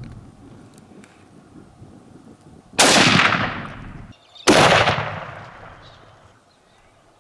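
Two gunshots about a second and a half apart, each a sharp crack followed by an echoing tail that fades over a second or more.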